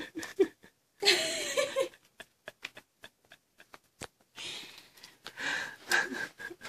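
Breathy, wheezy laughter in two stretches, with a string of small scattered clicks and crackles between them and one sharper click.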